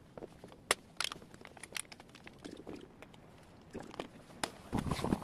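Scattered sharp clicks and light knocks from a scooter's plastic handlebar top panel being handled and fitted, with a louder scuffling near the end.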